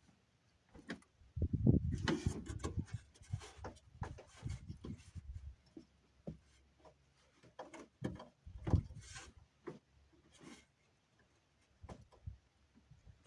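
Irregular handling noises of hands working on a pickup's door wiring harness and its plastic clips: scattered clicks, knocks and rubbing, with a louder run of thuds and rubbing in the first few seconds and another knock about nine seconds in.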